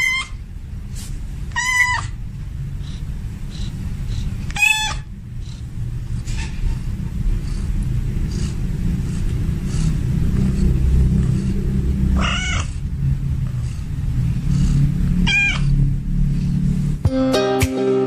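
Tomcat in heat giving its mating call: four short meows that rise and fall, spaced irregularly, over a steady low rumble. Acoustic guitar music starts about a second before the end.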